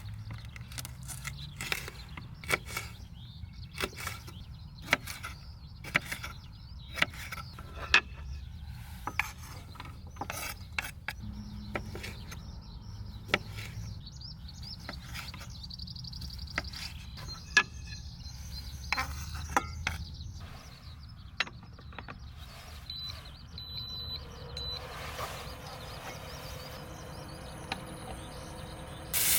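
Small objects being handled and set down: irregular sharp clicks and taps, about one a second, over a low steady rumble, with a few short high beeps about three quarters of the way through.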